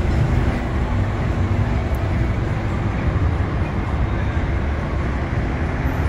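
Street traffic: cars driving along a multi-lane road, giving a steady rumble of engines and tyres.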